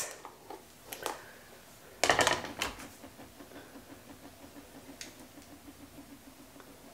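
Handling sounds of a Dyson Corrale cordless flat iron being clamped onto a section of hair and drawn through it. A couple of light clicks come first, then a brief rustle and clatter about two seconds in. After that it is quiet, with a faint low pulsing in the background.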